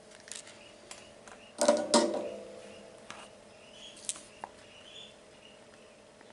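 Small hand tools being handled on a workbench during soldering: scattered light clicks and taps, with one louder metallic clatter about one and a half seconds in that rings briefly.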